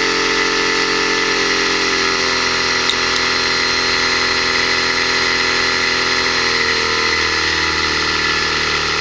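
Small 12-volt vacuum pump, drawing just under 3 amps, running steadily as the load on a homemade PWM motor controller. Over it sits a steady high-pitched whine from the controller's MOSFET switching.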